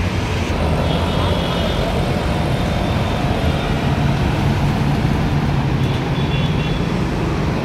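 Busy city road traffic: a bus, motorcycles and cars running past, with a steady low engine rumble.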